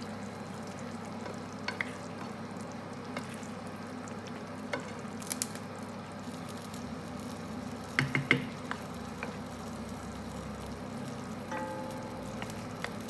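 A wooden spoon stirs tomato meat sauce (minced pork and beef with sliced hot dogs) as it sizzles in a nonstick frying pan over a steady low hum. There are a few sharp knocks of the spoon against the pan, loudest in a quick cluster about eight seconds in.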